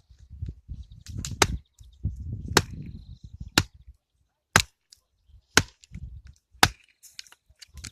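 Axe chopping firewood: six sharp strikes about a second apart, each a crack of the blade biting into the wood.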